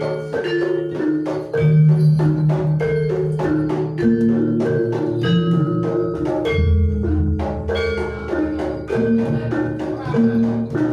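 Live Javanese gamelan accompaniment for a jaranan dance: bronze metallophones play a brisk, steady run of struck notes over drum strokes and sustained low gong tones, with a deeper gong sounding about two-thirds of the way through.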